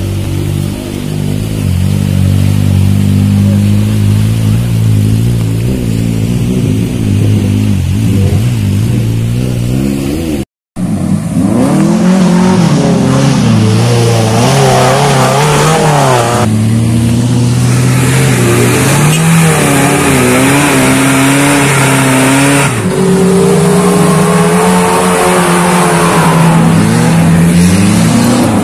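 Off-road 4x4's engine running under steady load, then, after a sudden cut about ten seconds in, revving up and down repeatedly, its pitch rising and falling.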